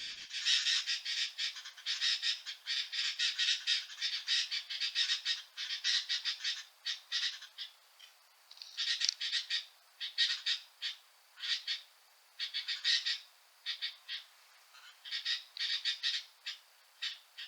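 Sooty-headed bulbuls calling noisily: rapid harsh, chattering calls from birds that have turned aggressive. The calls are almost continuous for the first several seconds, then come in shorter bursts with gaps.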